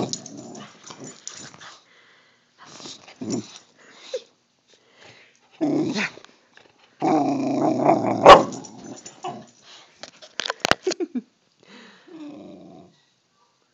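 Boxer dog growling in several short bouts, the longest about seven seconds in.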